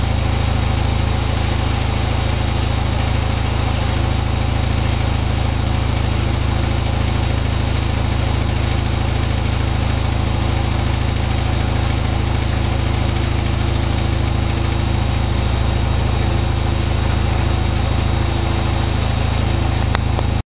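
Candy GrandO Plus washing machine spinning at a steady speed, a constant motor and drum hum, during the spin at the end of its wool cycle. It stops abruptly.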